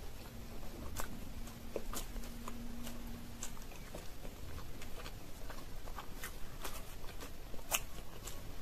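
Close-miked eating of fried green-peas kachori: chewing with many sharp, scattered wet mouth clicks and smacks, and fingers tearing the kachori.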